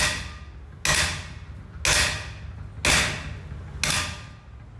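Hammer strikes, five in a row, about one a second, each hit ringing briefly before the next.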